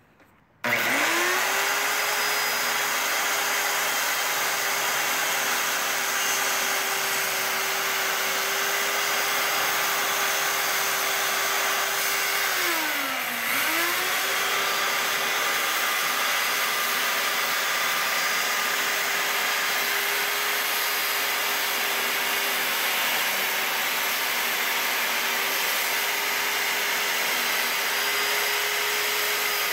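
Porter-Cable corded circular saw starting up about a second in and ripping a long bevel cut along a wooden board, its motor whine quickly rising to a steady pitch. About halfway through, the pitch briefly drops and then picks back up as the cut continues.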